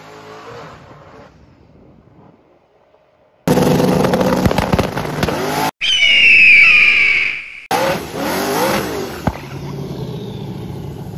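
Turbocharged 427 LSX V8 of a drag-race Mustang: first fading away as the car runs off down the track, then, after a cut, revving up and down in loud bursts. Midway there is a shrill high squealing whistle that glides in pitch for about two seconds, then more revs and a steadier running engine.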